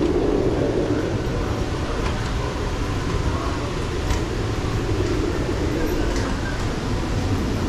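Steady low rumbling background noise with faint voices in the distance.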